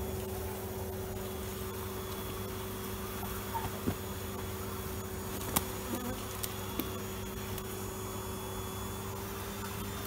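Steady buzzing drone of a honey bee colony in an opened fallen tree hive, with a couple of small knocks near the middle.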